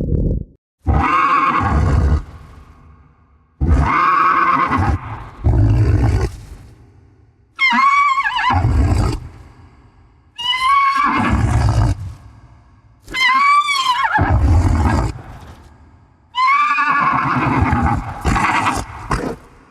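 A string of about seven horse-like whinnies from a designed creature sound effect. Each call lasts a second or two, with a quavering pitch that rises and falls.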